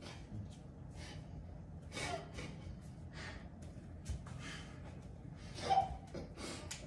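People's short, quiet puffs of breath, several in a row, with a light tap about four seconds in and a louder breathy burst near the end.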